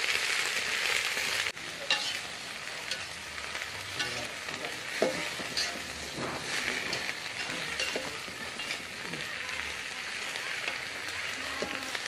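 Mustard greens stir-frying in a pan, sizzling steadily. The sizzle is loud for about the first second and a half, then drops suddenly to a quieter level, with scattered clicks of the spoon stirring against the pan.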